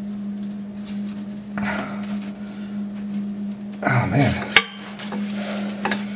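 Metal clinking and handling at a tractor's hydraulic suction filter fitting as it is worked loose by hand. There is a louder scuffle about four seconds in, ending in one sharp ringing metal clink. A steady low hum runs underneath.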